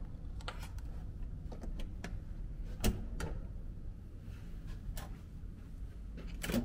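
Hotel room door's electronic key-card lock and metal lever handle: a series of sharp clicks and clacks as the lock releases, the handle is pressed down and the door is pushed open, the loudest clack about three seconds in.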